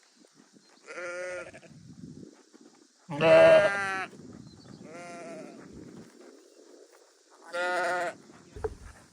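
Sheep bleating, four separate calls each under a second long, the second one the loudest.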